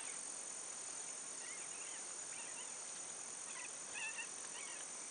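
Steady high-pitched insect buzzing, with a few faint bird chirps in the middle.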